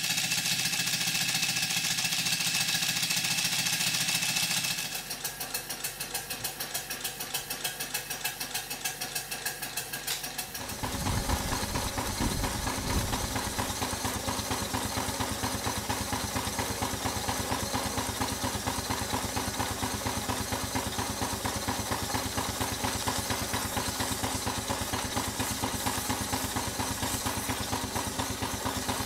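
Scale-model showman's traction engine running and driving a generator, its exhaust hissing with a fast regular beat. The hiss drops about five seconds in. About eleven seconds in it gives way to a second model showman's engine, running on compressed air, with a lower, steady rapid exhaust beat.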